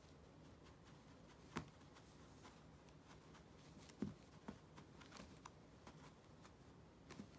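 Near silence broken by a few faint soft thumps and rustles, the clearest about a second and a half in and about four seconds in: a kitten batting and pouncing at a feather wand toy on a carpet.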